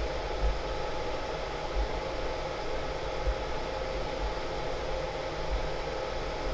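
Desktop FDM 3D printer running a print: a steady fan whir with several faint steady tones over it.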